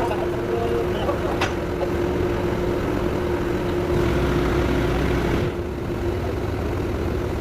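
A heavy vehicle engine idling steadily, with a constant hum over it.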